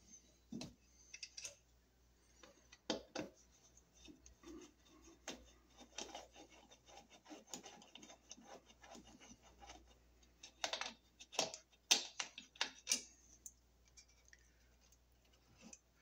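Screwdriver backing out a wall light switch's mounting screws: faint, irregular clicks and scrapes of the tip on the screw heads and the switch's metal strap, with a run of sharper clicks about eleven to thirteen seconds in.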